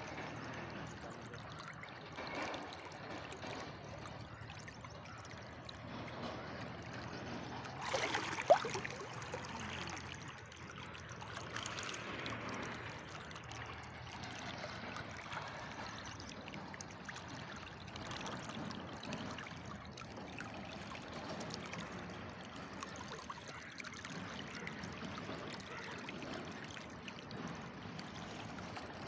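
Steady rush of flowing river water, with a faint low hum in the first half and a brief sharp knock about a third of the way through.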